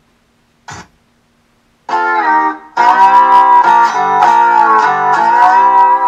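A short click under a second in, then a guitar song starting about two seconds in, played through a bare 165 mm loudspeaker driver with an extra magnet added to boost its bass.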